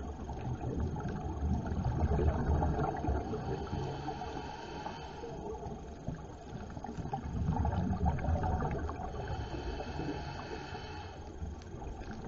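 Scuba regulator breathing heard underwater: two long low rumbles of exhaled bubbles about six seconds apart, with a quieter hiss of inhalation between them.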